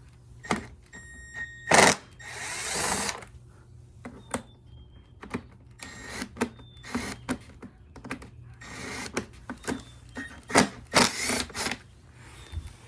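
Tools and plastic parts of a Honda EU2200i generator being handled during disassembly: a run of sharp clicks and knocks, with a rasping burst about a second long a couple of seconds in and a louder cluster of knocks near the end.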